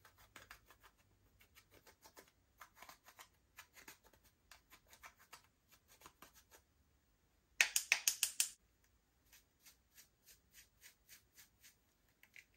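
Hands working slime, a steady run of small sticky clicks and pops, with a louder quick flurry of them about eight seconds in.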